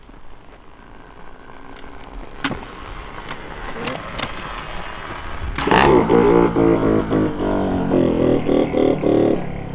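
Bump start of a Kawasaki 60cc two-stroke motocross bike that had stood for over ten years: rolling and footsteps building for about five seconds, then the engine catches and runs loud and uneven, pulsing, for about four seconds before cutting out.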